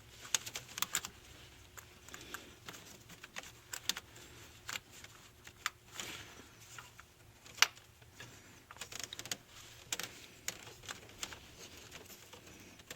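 Irregular light clicks, taps and rattles of a plastic electrical plug and its wiring being handled at the engine's solenoid valve, with a sharper click about 7.5 seconds in.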